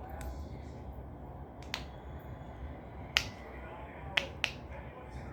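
Four sharp clicks or taps from small toys being handled and set down, the loudest about three seconds in, over a low steady hum.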